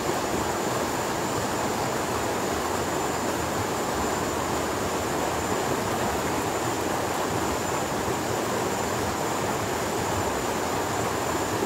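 Shallow, fast-flowing river rushing steadily over rocks.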